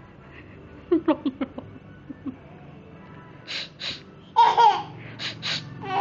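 A baby laughing in bursts: a quick run of short laughs about a second in, then breathy laughs and a longer squealing one in the second half.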